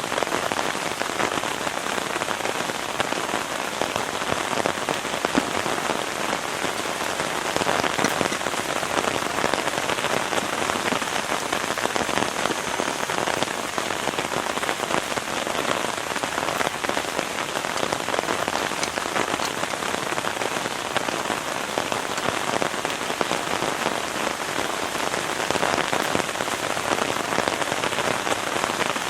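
Heavy rain falling steadily, many drops striking a surface at once at an even intensity.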